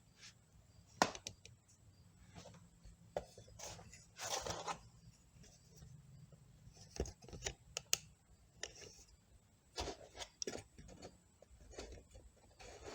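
Scattered clicks, light knocks and a brief scrape of C6 automatic transmission parts being handled during teardown, with a faint steady low hum underneath.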